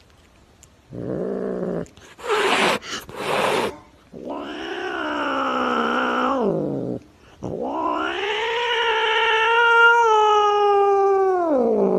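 Domestic cat yowling: two long, drawn-out caterwauls, the second about four seconds long and dropping in pitch at the end. Before them come a shorter, lower call and a few brief noisy bursts.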